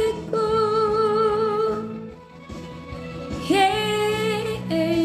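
A woman singing long held notes with vibrato over soft instrumental backing chords; the first note fades out about two seconds in, and a new one begins a second and a half later.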